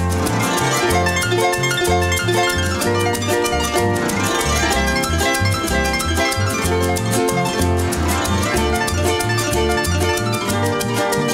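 Instrumental music: a harp plays a plucked melody over guitars and a stepping bass line, with no singing.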